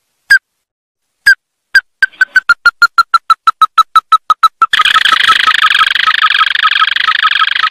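Ruddy-breasted crake calling: a few spaced single notes, then a quickening series of short notes that drift slightly lower in pitch. After about four and a half seconds this runs into a fast, dense trill.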